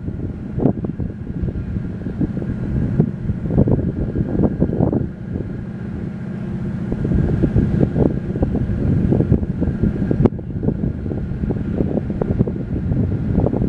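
Wind buffeting the microphone over a steady distant drone from the Seastreak Commodore, a high-speed catamaran ferry, running past at speed.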